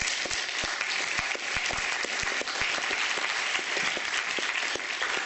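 An audience applauding: many hands clapping together in a dense, steady stream, with single nearby claps standing out sharply.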